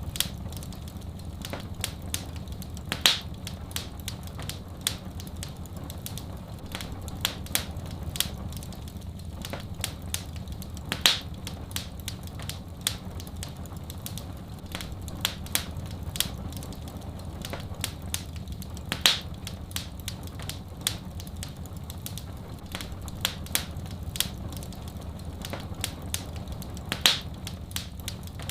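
Wood fire crackling: a constant run of small crackles and sharp pops, with a louder pop about every eight seconds, over a steady low rumble.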